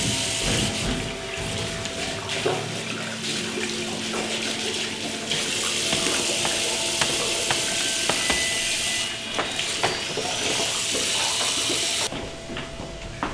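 Tap water running into a washbasin as a head of blonde hair is rinsed under it. The flow grows stronger about five seconds in and stops abruptly about a second before the end.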